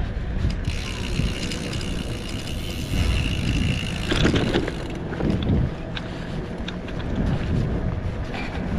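Wind buffeting the microphone while a mountain bike is ridden along, with a rumble of tyre and road noise. From about half a second to five seconds in, a high hiss with a steady high whine rides on top.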